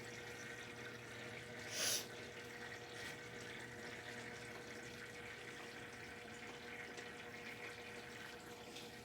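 Brastemp BWK 11 kg top-loading washing machine filling with water: a steady rush of water into the tub with a low electrical hum, and one brief louder noise about two seconds in.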